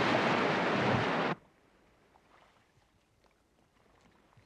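Rushing whitewater of river rapids, a loud steady hiss of churning water that cuts off abruptly about a second and a half in, leaving near silence.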